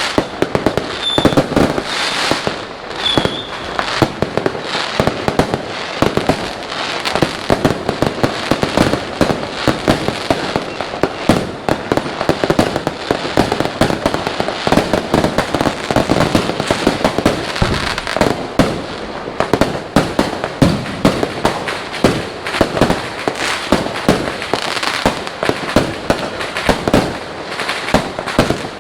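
Fireworks going off without pause: dense, overlapping bangs and crackling, with a few short high whistles in the first few seconds.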